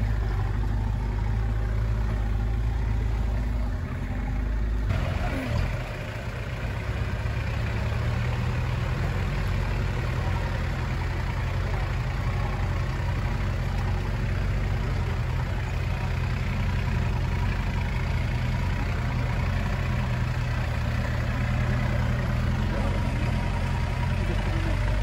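Land Rover 4x4's engine running steadily, with a brief dip in loudness about four to six seconds in.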